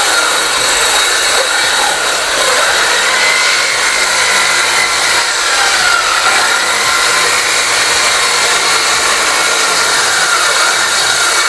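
Handheld electric circular saw cutting lengthwise along a long wooden plank, running steadily. Its motor whine wavers up and down in pitch as the blade takes the load.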